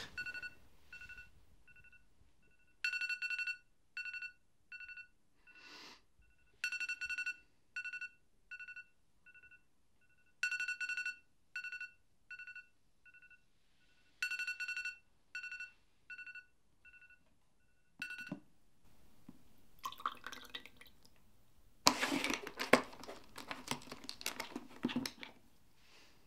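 Phone alarm beeping: short, single-pitched electronic beeps in bursts every few seconds, each burst fading away in echoing repeats. After the beeps stop, a rattling clatter for a few seconds near the end.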